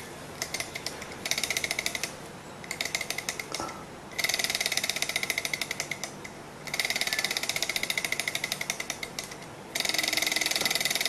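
A small glass-and-metal Stirling engine clatters with rapid mechanical ticking in short runs of one to three seconds, with brief gaps between them, as it is being started and is not yet running on its own. About ten seconds in it keeps going and settles into steady running.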